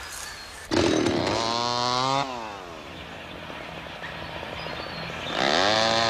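Chainsaw engine revved hard about a second in, its pitch climbing and then falling back to a lower idle, then revved up again near the end.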